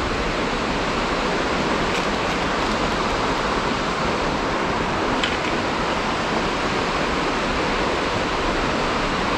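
River water rushing steadily, an even, unbroken noise, with a couple of faint ticks.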